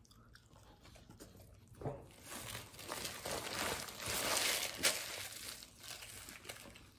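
Foil-lined paper food wrapper being crumpled and handled, a crinkling rustle that builds from about two seconds in and is loudest around four to five seconds.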